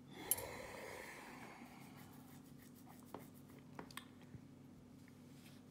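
Small metal lock parts and picking tools handled by hand on a rubber mat: a sharp click, then about a second and a half of scraping and rustling, then a few light clicks.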